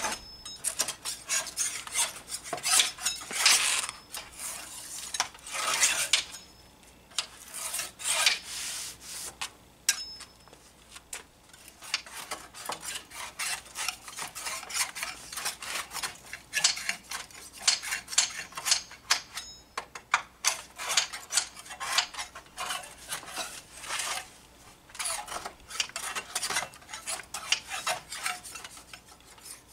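Metal scraper scraping in the gaps between a bench's wooden slats, clearing out old finish, in quick irregular strokes with short pauses.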